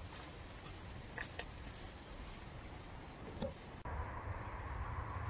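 Faint background ambience with a few soft clicks and rustles; about four seconds in it changes abruptly to a slightly louder background with a low rumble and a faint steady hum.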